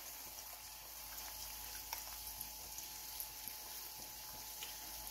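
Faint, steady sizzle of onions and bell peppers frying in a wok, with scattered small crackles, while soy sauce is poured in.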